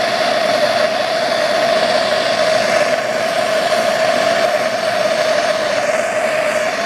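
Propane torch burning steadily, a constant loud rush of flame with an even hum-like tone in it, as it heats aluminum to melt brazing rod into a joint.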